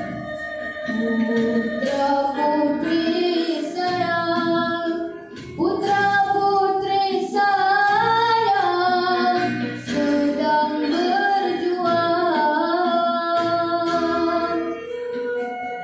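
A boy singing a patriotic song in a high, clear child's voice, holding and gliding between notes, with musical accompaniment underneath.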